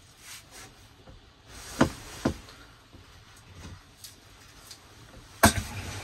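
Handling knocks: two sharp knocks about half a second apart, then a louder knock near the end as a clear plastic case is set down on a wooden desk.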